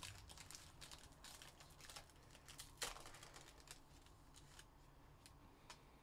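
Faint crinkling and ticking of a foil trading-card wrapper being torn open and the cards handled, with one sharper click about three seconds in.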